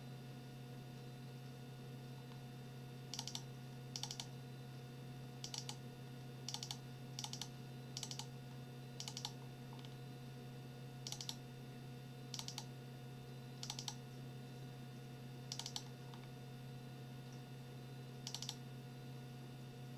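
Computer keyboard typing in about a dozen short bursts of a few keystrokes each, starting about three seconds in, over a steady low hum.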